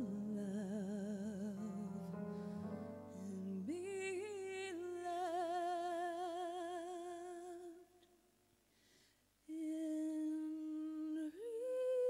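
A woman singing long held notes with vibrato, over a soft keyboard accompaniment for the first few seconds. She breaks off for about a second and a half past the middle, then holds more notes, stepping up in pitch near the end.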